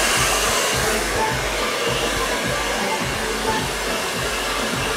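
Handheld hair dryer blowing steadily, with an uneven low rumble beneath the even rush of air.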